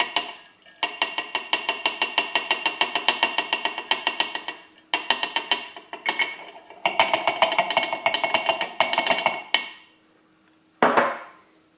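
Hop pellets poured from a ceramic jug into a glass demijohn, rattling against the glass in three runs of rapid clicks. A single knock follows near the end.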